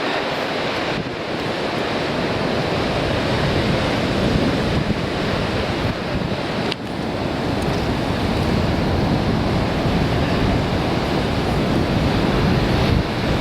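Sea waves surging and breaking against rocky shore, with strong wind buffeting the microphone in a continuous rushing roar. A single sharp click sounds about halfway through.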